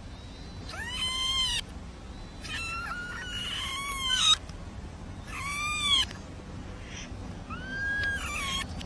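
A small kitten meowing repeatedly in high-pitched calls, four or five in a row, each rising then falling in pitch. The middle call is longer.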